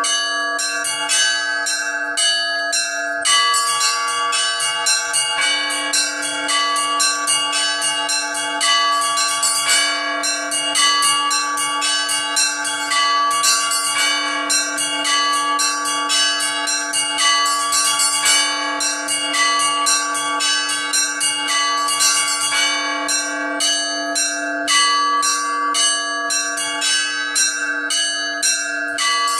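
Orthodox church bells struck by an automatic electronic bell-ringing system, playing the slow weekday peal. The small bells strike quickly and evenly, about three times a second, over the steady hum of a lower bell.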